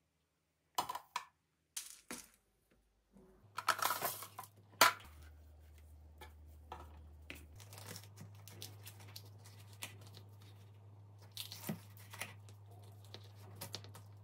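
Crinkling and tearing of packaging, in scattered short rustles and clicks, loudest about four to five seconds in and again near the end.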